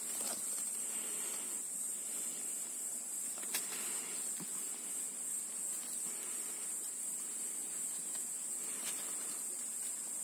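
Steady high-pitched chirring of insects, with faint rustling of leaves and one small click about three and a half seconds in.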